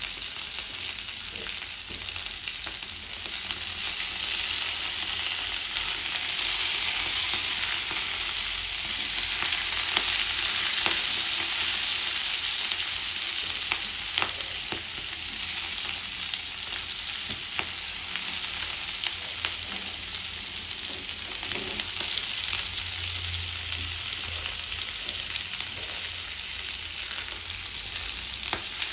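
Chopped bok choy sizzling in a hot frying pan: a steady frying hiss that grows louder in the middle and then eases. A silicone spatula stirring the pieces adds a few short clicks against the pan.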